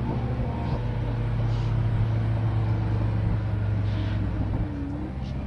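A steady low rumbling drone with faint held tones above it, which thins out about four and a half seconds in.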